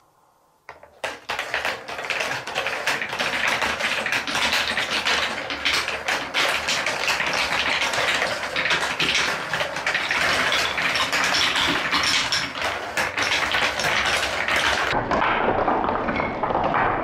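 Many balls rolling and clattering down a HABA Trix Track marble run of wooden and plastic track: a dense, continuous stream of clicks and rolling that starts suddenly about a second in.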